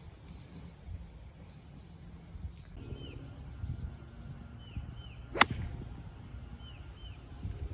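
A golf iron strikes a ball off the turf once, a single sharp crack about five and a half seconds in.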